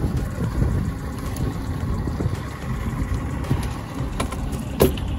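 Yamaha V6 150 outboard motor running with a steady low rumble, mixed with wind on the microphone. A single sharp click sounds near the end.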